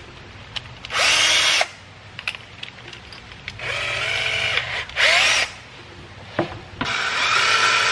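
Cordless drill run in four short trigger bursts, drilling holes through a black plastic cover panel. The motor's whine rises and falls with each squeeze of the trigger, and the last burst, near the end, lasts about two seconds.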